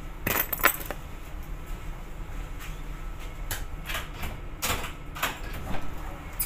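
Scattered knocks, clicks and rustles of a person moving about a small ship's cabin, with the loudest clatter within the first second; near the end the cabin door is opened. A low steady hum runs underneath.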